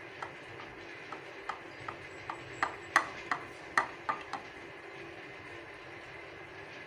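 Silicone spatula pressing and patting almond-topped barfi mixture down in a glass baking dish: a run of irregular light taps and clicks for about the first four and a half seconds, then only a faint steady background hum.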